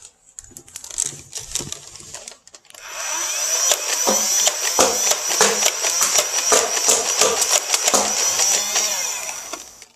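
Motorized Nerf blaster running for about seven seconds, starting about three seconds in: its motor whirs with a steady high whine over many sharp clicks, then fades out. A few lighter clicks come before it.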